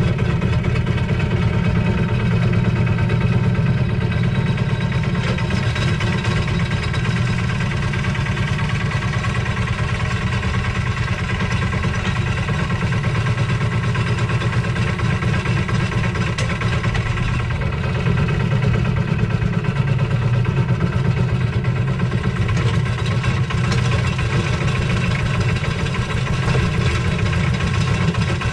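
Lister SR1 single-cylinder diesel engine of a 1979 Smalley 5 mini digger running steadily while the digger's arm and bucket dig.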